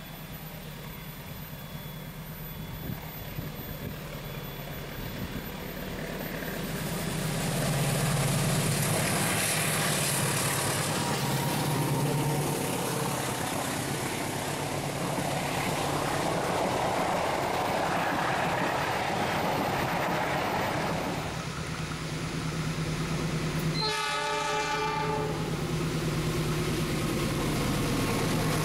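Diesel-electric locomotive hauling passenger coaches, its engine running with the rumble of wheels on rail, growing louder about seven seconds in. About three-quarters of the way through, the locomotive's horn sounds one chord-like blast of about a second and a half.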